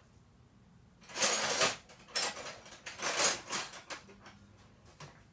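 Metal hand tools clattering in three loud bursts of about half a second each, the first about a second in, with a few lighter clinks afterwards, as a wrench is picked out from among other tools.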